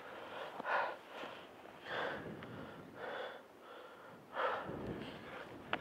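A person breathing heavily in short, audible gasps, about one breath every second or so, the breathing of someone in pain from an injured leg.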